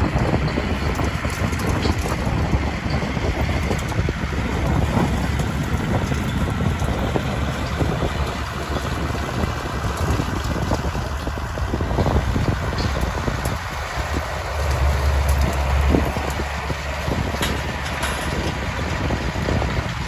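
Case-International 956XL tractor's six-cylinder diesel running steadily as it pulls a Claas twin-rotor rake rowing up hay, with wind noise on the microphone.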